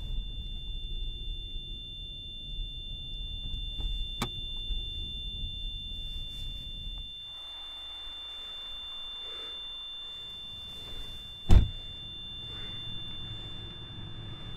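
A steady high-pitched ringing tone over a low car rumble; the rumble drops away about seven seconds in, leaving the ringing over quieter background. A single sharp thump, the loudest sound, comes about eleven and a half seconds in.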